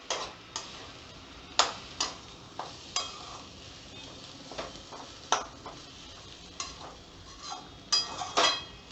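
Metal spatula scraping and knocking against a metal wok while stirring a thick, coarse green pea paste, in irregular strokes, some with a brief metallic ring. The paste is stirred without pause so it does not stick to the bottom.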